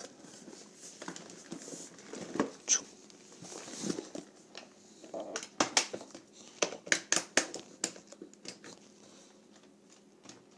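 Aluminium Rimowa Classic suitcase being pressed shut: scattered clicks and knocks from the metal shell and frame, with rustling from the packed contents and a quick run of sharp clicks about halfway through.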